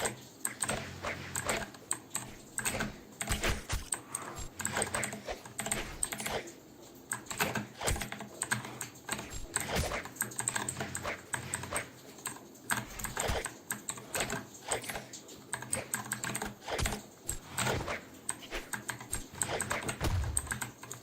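Typing on a Vortexseries VX8 mechanical keyboard with stock blue clicky switches: a fast, uneven stream of key clicks with short pauses.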